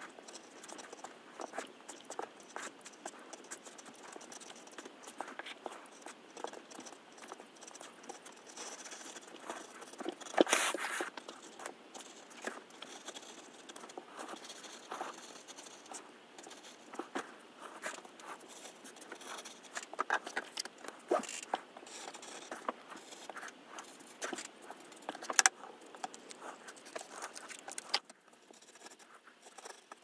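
A craft knife's blade cutting a paper stencil on a cutting mat: irregular small scratches and ticks as the point scores and pierces the paper. Louder paper crackles come about ten seconds in and again later.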